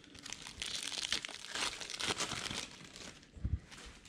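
Plastic wrapping crinkling and tearing in quick bursts, with a dull thump about three and a half seconds in.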